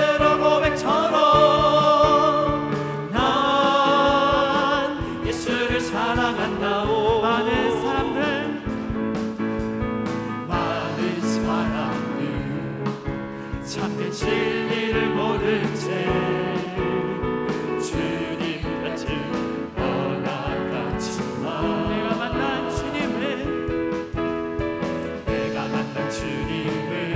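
A church praise team of mixed men's and women's voices sings a Korean gospel song into microphones over electric keyboard accompaniment. There are long held notes in the first few seconds, then the singing moves on into a new verse.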